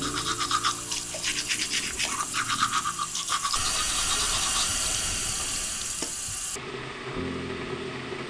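A toothbrush scrubbing teeth in quick back-and-forth strokes, with a low steady hum underneath. About three and a half seconds in, the brushing gives way to a steady rushing hiss that cuts off suddenly about three seconds later.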